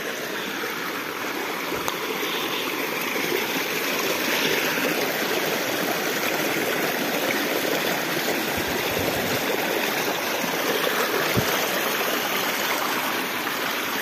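A small creek's water running steadily, an even, unbroken hiss of flowing water.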